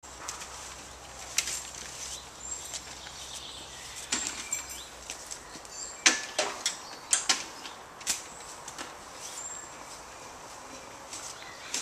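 Irregular sharp knocks and clicks of lighting gear being handled on a raised cherry-picker basket, the loudest a little past the middle, with short high bird chirps behind.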